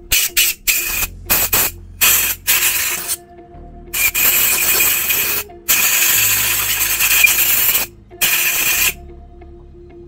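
Compressed air blown through a long thin nozzle into the ports of a polished duralumin regulator body, in a series of short hissing blasts, the longest about two seconds. It is clearing out the part after polishing.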